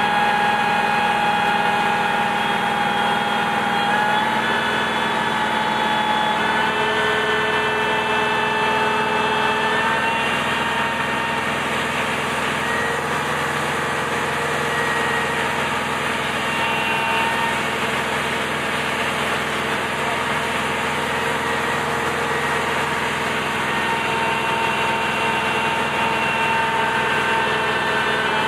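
Aerial ladder truck's engine running steadily, driving the hydraulics as the ladder is raised and swung: a constant mechanical hum with whining tones that step up in pitch about 4 and 10 seconds in.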